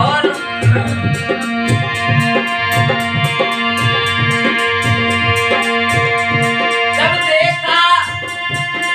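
Harmonium playing a held melody over a steady hand-drum beat of about three strokes a second. A man's voice comes in singing about seven seconds in.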